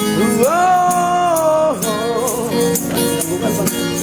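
Busker's singing voice sliding up into a long held note, then wavering lower near the middle, over guitar accompaniment with a rattling shaker or tambourine.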